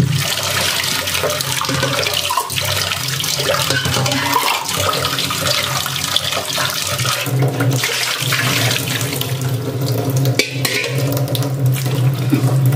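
Kitchen tap running into a stainless steel sink, the water stream splashing into and off steel pots as they are rinsed, with now and then a brief knock.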